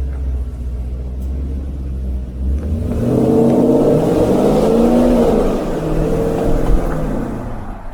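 Porsche Cayenne S with an aftermarket Akrapovic dual exhaust: a low exhaust rumble, then about three seconds in the engine revs up under acceleration, its note climbing and then falling back, easing off near the end.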